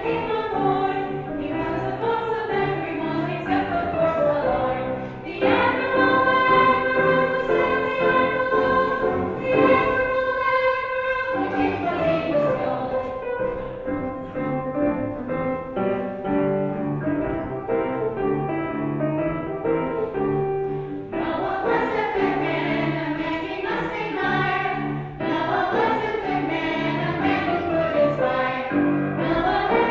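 Children's choir singing a song from a children's cantata, with a long held chord from about six seconds in to about eleven seconds.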